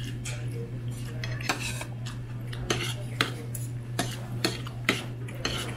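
A metal spoon clinking and scraping against a plate as it scoops up kimchi fried rice, a dozen or so short irregular strokes.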